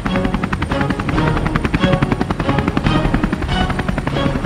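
Cartoon helicopter sound effect: the rapid, even chop of a rotor over a bright backing tune.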